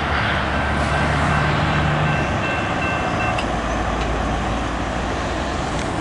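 Steady rumble of a freight train's cars rolling away down the track, mixed with idling road traffic waiting at the crossing.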